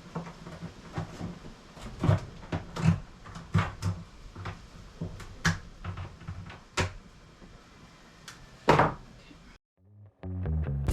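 Irregular knocks and clunks from demolition work on a camper's wooden kitchen cabinets, with one heavier thud about nine seconds in. The sound then cuts out, and music starts near the end.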